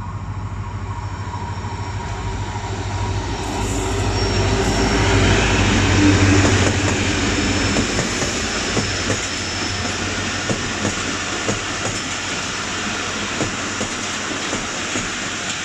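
Pakistan Railways HGMU-30 diesel-electric locomotive running as it draws close and passes, its engine drone loudest about six seconds in. Then the passenger coaches roll by with a steady clickety-clack of wheels over the rail joints as the express pulls in to stop.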